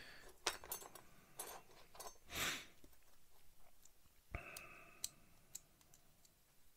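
Light clicks and taps of styrene plastic model-kit parts being handled and tried against a plastic chassis, with a soft rustling hiss about two and a half seconds in.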